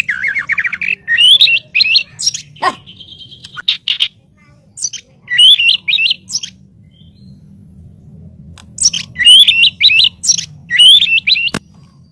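White-rumped shama (murai batu) singing: quick phrases of whistled notes with sharp clicks mixed in, in three groups separated by short pauses, over a low steady hum.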